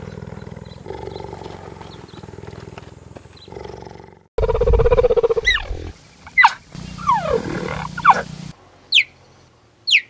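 Cheetah vocalizations in quick succession: a low, pulsing rumble for about four seconds, then a louder low growl, then sliding calls and several short, high chirps that fall sharply in pitch.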